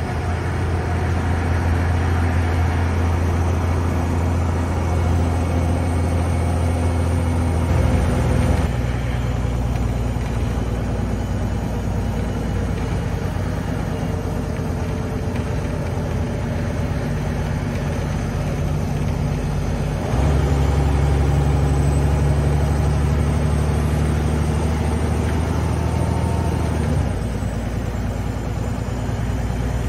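Interior sound of a Gardner 6LXCT six-cylinder turbocharged diesel bus engine pulling the bus along at road speed, a deep steady drone mixed with road noise. The deep engine note drops back about eight seconds in, swells again around twenty seconds and eases once more near the end, as the driver comes off and back onto the throttle.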